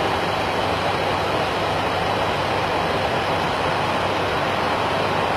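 Steady rushing noise inside an airliner cockpit in flight, from airflow and engines, with a faint low hum beneath it.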